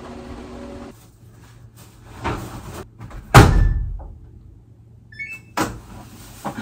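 Laundry-room handling: a laundry machine's door knocked and shut with one heavy thump, a few lighter knocks around it, and a short rising run of electronic beeps from the machine's controls.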